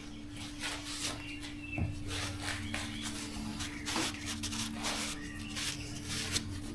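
Irregular rubbing and scuffing strokes as a freshly lapped valve is pulled from an LS cylinder head and its face and seat are handled and wiped of coarse lapping compound, over a steady low hum.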